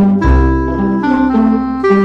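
Background music: a jazzy tune with a woodwind or brass lead over bass and piano, its notes changing several times a second.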